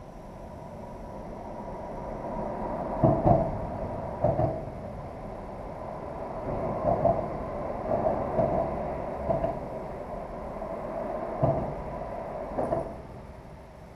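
Road traffic crossing the bridge overhead, heard from beneath the deck. A steady rumble builds and then fades near the end, and a series of heavy thuds and clunks sounds as the wheels pass over the deck.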